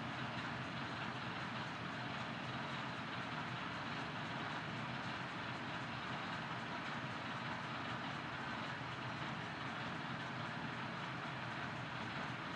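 Diesel locomotive of the DD350 class running steadily at a standstill, a constant engine noise with no change in pitch or rhythm.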